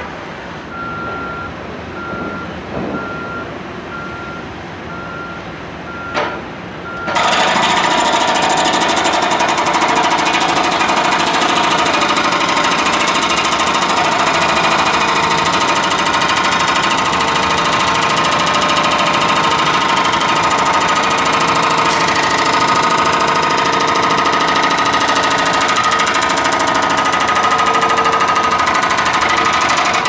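Hydraulic hammer on a Caterpillar 420E backhoe loader breaking up street pavement. It starts suddenly about seven seconds in and keeps up a loud, steady hammering.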